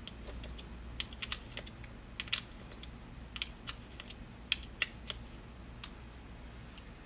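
Light, irregular clicks and taps of fingers turning a camera plate's mounting screw into the tripod socket at the base of a Nikon D300, over a low steady hum.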